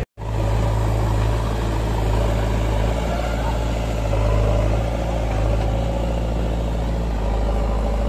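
Heavy diesel engine of a JCB 3DX backhoe loader running steadily, a constant low drone with small rises and dips in level. The sound drops out for a split second right at the start.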